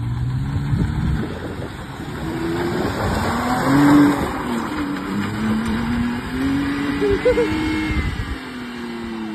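Pickup truck engine revving up and down, its pitch rising and falling several times, loudest about four seconds in.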